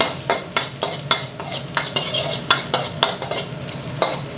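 Metal spatula scraping and tapping against a wok, about three strokes a second, as minced garlic is stir-fried, with the garlic sizzling in hot oil underneath.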